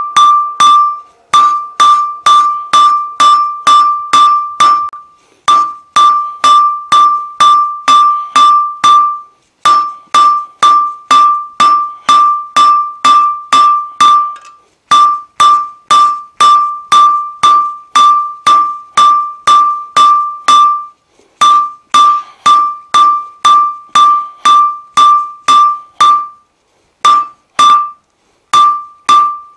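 Hand hammer drawing out a red-hot half-inch square mild steel bar on an anvil: steady blows about two to three a second in runs of several seconds with brief pauses. Each blow sets off the anvil's high, bell-like ring.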